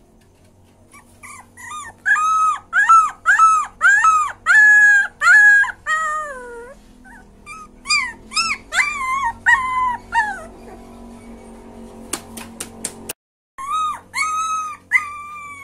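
Young puppy whining and crying in quick runs of high, arching cries, about two a second, in three bouts with short pauses between. A brief run of sharp clicks comes in the second pause.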